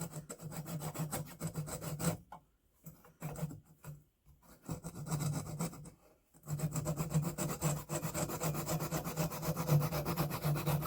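Flush cut hand saw sawing off a wooden dowel end flush with the surface, in quick, even strokes. It goes in several bouts with short pauses, the last bout the longest.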